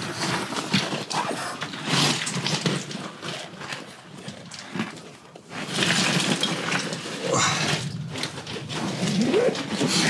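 Padded jacket rustling and scraping against rock as a person crawls and squeezes down a narrow mine passage, in irregular scuffs that ease off about halfway through, then pick up again.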